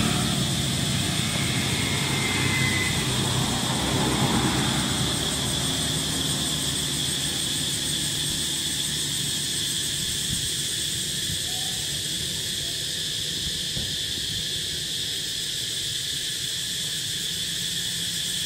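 Outdoor ambience: a steady high-pitched drone in two bands, with a low rumble under it that fades away over the first several seconds.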